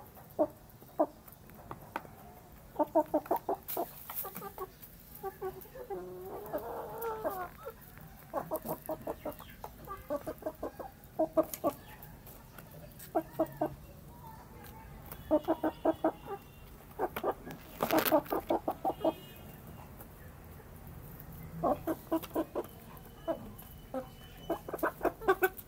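Chickens clucking in quick runs of short notes while they peck food from a metal bowl, with a few sharp taps of beaks on the bowl.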